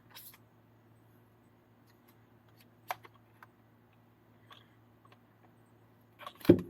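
A few small scattered clicks and taps of plastic and metal RC truggy kit parts being handled and fitted by hand, with a louder knock near the end.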